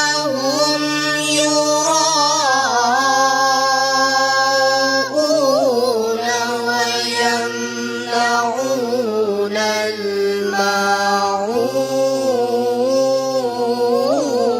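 A single voice reciting the Quran in a slow, melodic chanting style, holding long notes that bend through ornamented turns, with a couple of short breaks between phrases.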